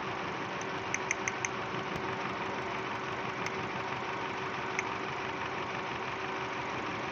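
Second-generation Toyota Vios engine idling steadily, with four sharp clicks about a second in and two more single clicks later.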